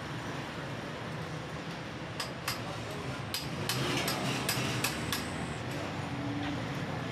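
Steady street and workshop background noise, with a quick run of about eight sharp clinks and taps in the middle.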